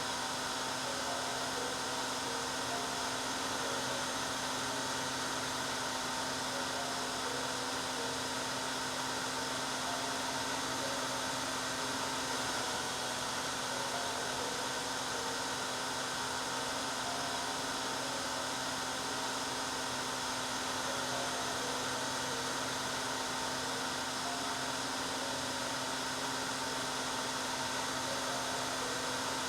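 Hair dryer running continuously: a steady rushing hiss of blown air with a constant motor hum under it.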